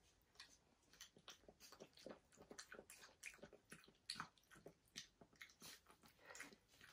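Faint, irregular crunching and mouth sounds of a young Australian Shepherd puppy chewing dry kibble.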